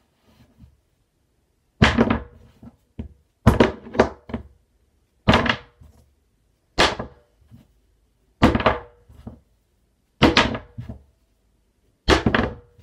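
A roll of black tape flipped and landing with a thunk on a wooden desk, about seven times at roughly one-and-a-half-second intervals, some landings with a quick rebound knock.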